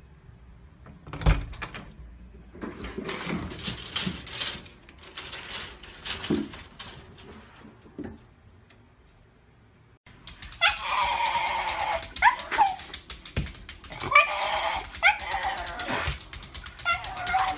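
Shiba Inu whining in a series of drawn-out, wavering calls from about ten seconds in. Before that come scattered knocks and rattles.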